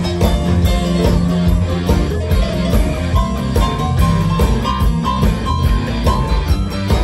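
Live blues-rock band playing with electric guitars, bass guitar, keyboard and drums. Repeated high held notes come in about three seconds in.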